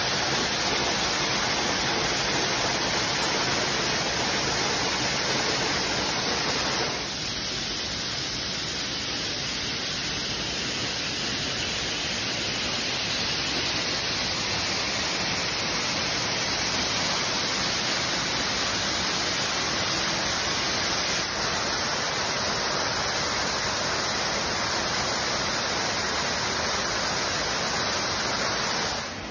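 Waterfall rushing: a steady wash of falling water. Its level steps down slightly about seven seconds in, and its character shifts again about twenty-one seconds in.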